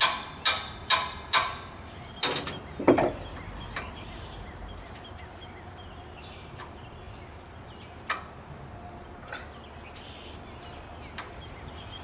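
Steel hammer rapping the handle of a wrench set on a stuck fitting at the base of a pallet stacker's hydraulic cylinder, to shock it loose: sharp metallic taps about two or three a second. About two to three seconds in come a few harder blows, the last with a deeper clank, then only a few scattered light clinks.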